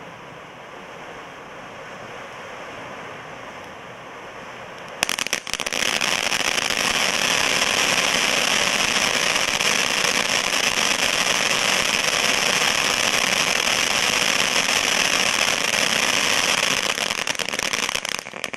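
A 500-gram triple-jet fountain firework hissing as it sprays sparks. About five seconds in it turns suddenly much louder into a dense crackling, which runs until it dies down at the very end.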